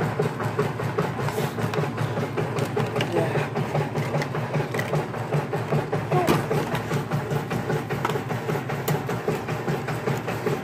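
Toy RC car's small electric motor and gears running, a steady whir with a rapid pulsing rattle and a few light clicks.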